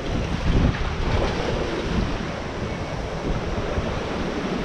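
Sea surf washing against the rocks, with wind buffeting the microphone in gusts.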